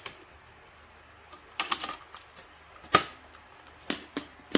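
Philips N2533 cassette deck being unloaded: a string of sharp plastic clicks and knocks as the cassette is lifted out of the open eject door and the door is pushed shut. The loudest click comes about three seconds in.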